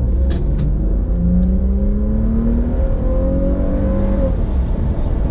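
Toyota sedan's engine pulling under hard acceleration, heard from inside the cabin over a heavy low road rumble. Its pitch rises steadily for about three seconds and then falls back a little past four seconds in, as the car shifts up or eases off.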